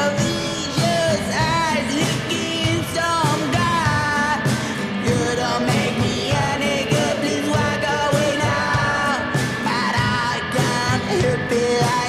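Garage rock song playing: sung vocals over electric guitars and a steady drumbeat.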